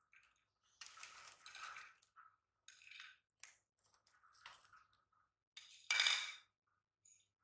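Popcorn being handled around a small plate and a plastic popcorn tub: a run of short, irregular clinks and rattles, the loudest a brief rattle about six seconds in.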